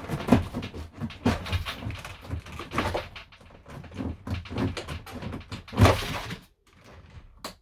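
Irregular knocks, scrapes and thuds of hand work on a camper van's interior fittings with a small fruit knife, with sharp loud knocks about a third of a second in and again near six seconds.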